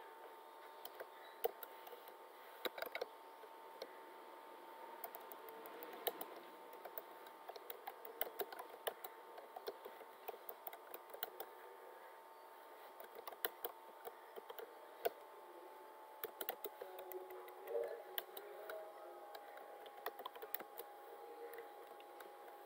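Computer keyboard keys clicking in irregular runs of typing, over a faint steady hum.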